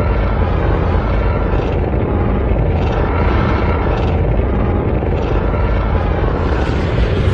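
Designed giant-monster (kaiju) sound effect: a loud, dense rumble with a hissing edge that swells and fades about every second and a bit.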